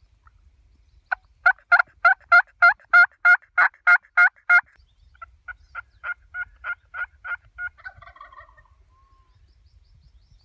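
Friction turkey call worked with a wooden striker, yelping like a hen turkey: a run of about a dozen loud yelps, then after a short pause a softer run of about ten that trails off.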